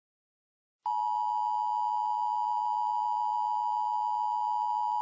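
Emergency Alert System attention signal: a steady, unbroken electronic tone near 1 kHz, starting about a second in after a short silence. It announces that a spoken emergency warning follows.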